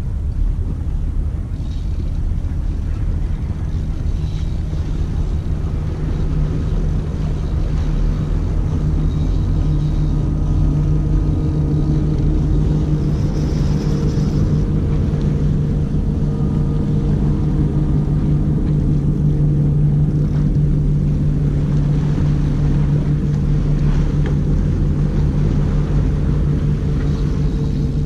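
An engine running steadily with a low, even hum, growing a little louder partway through.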